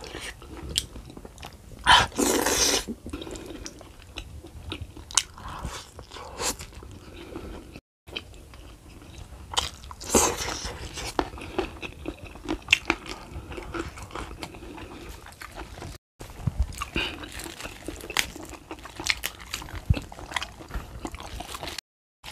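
Close-miked mukbang eating: wet chewing, lip smacking and crunchy bites of a meal of beef foot, rice, chili sambal and raw vegetables, eaten by hand. Louder mouth sounds come about two seconds and ten seconds in.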